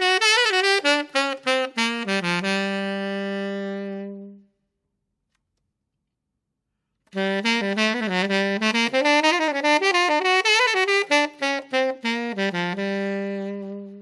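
Saxophone playing a short hot jazz lick, ending on a long held low note that stops about four and a half seconds in; after a stretch of total silence the same lick starts again about seven seconds in and ends on the same held note. The two takes are played on different saxophone reeds, compared to hear synthetic against cane.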